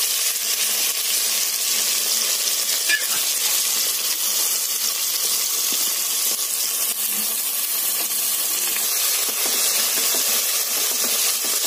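Onions, green chillies and tomatoes frying in coconut oil in a pressure cooker, with ginger-garlic paste just added. The sizzle is steady and is stirred with a wooden spatula, with a single sharp knock about three seconds in.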